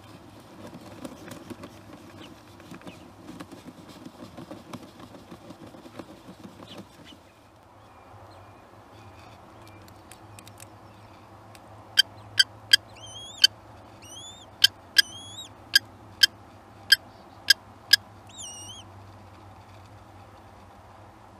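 Female common kestrel calling to her newly hatched chick: about ten loud, short, sharp notes about half a second apart, with a few drawn-out wavering notes among them, starting about halfway through. Before that, a scratchy rustling of the bird shifting on the wood-chip nest litter.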